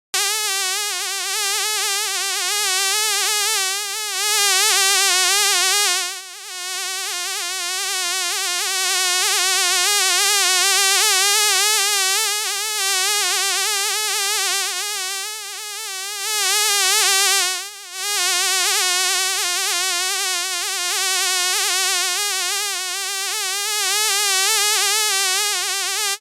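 Fly buzzing in flight: a continuous drone whose pitch wobbles up and down without pause, dropping away briefly twice, about six seconds in and again about eighteen seconds in.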